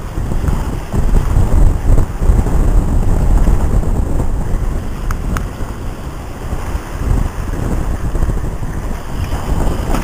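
Wind buffeting the microphone in irregular gusts aboard a Moody 42 sailing yacht running goose-winged under sail, with the rush of sea water along the hull beneath it.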